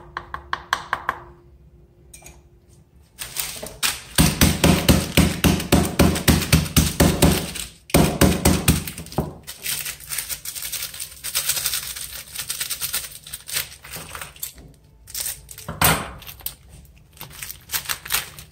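Oreo biscuits being crushed roughly in their packet: a burst of rapid knocks and cracks, several a second, starting about three seconds in and thinning out after about ten seconds.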